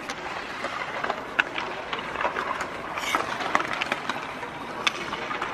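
Ice hockey practice on a rink: skate blades scraping the ice and many short sharp clicks of sticks and pucks, with a brief scraping hiss about three seconds in.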